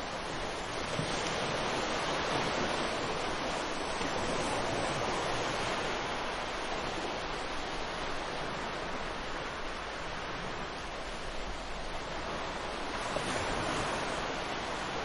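Ocean surf: a steady wash of breaking waves, swelling and easing slowly over several seconds.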